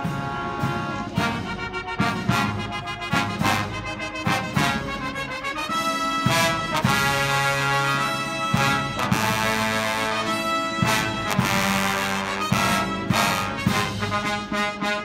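Military band playing: trumpets and trombones sounding sustained brass notes over regular drum strokes.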